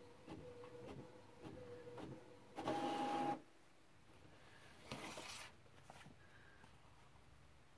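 HP ENVY Photo 7155 inkjet printer finishing a print on fabric backed with paper: a steady hum with regular clicks from the print mechanism, then a short louder motor whir about two and a half seconds in as the sheet is fed out. A brief rustle of the printed sheet being handled follows about five seconds in.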